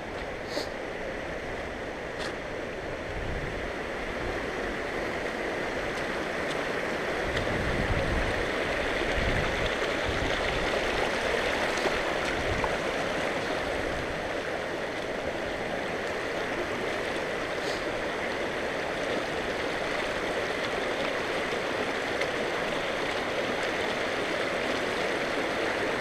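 A rocky mountain creek rushing over stones, a steady water noise that grows a little louder about seven seconds in.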